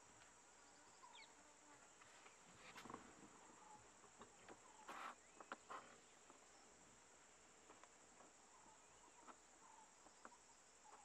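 Faint, steady, high-pitched insect drone from the surrounding forest, with a few faint scattered clicks and short chirps.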